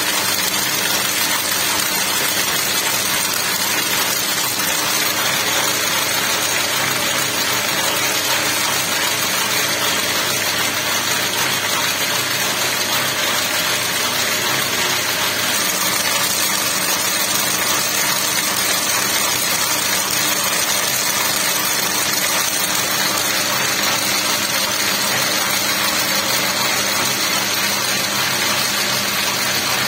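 Braiding machine running: bobbin carriers circling and geared take-up rollers turning, making a steady, even mechanical whir with a low hum beneath it.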